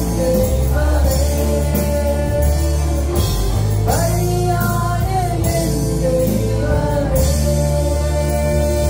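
Christian praise and worship song: a singer's gliding, ornamented melody over a band with sustained bass and keyboard chords.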